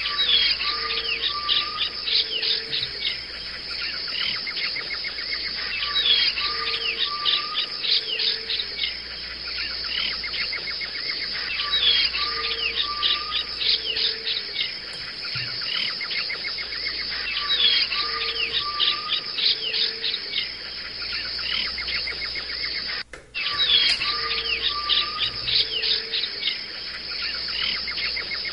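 Nature ambience of birds chirping and insects trilling, laid over the picture as a loop: the same calls come back about every six seconds. There is a brief dropout about 23 seconds in.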